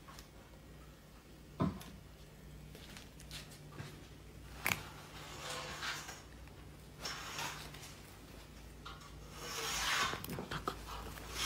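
Handling noise: a blanket's fabric rustling in several soft swishes as a hand strokes a cat lying on it, the longest swish near the end. There are two sharp taps earlier on, and a faint steady low hum underneath.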